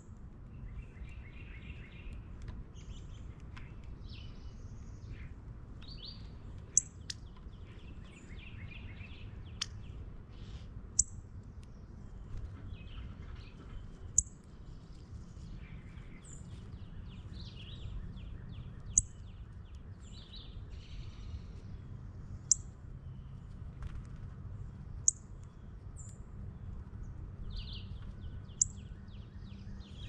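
Wild birds calling: a mix of chirps and short rapid trills, with a sharp high chip note every three to four seconds standing out as the loudest sound. Underneath runs a steady low rumble.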